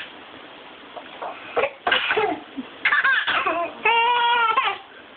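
Deliberate fake coughs: a run of short, harsh coughing bursts starting about one and a half seconds in, followed by a steady, drawn-out voiced sound lasting under a second near the end.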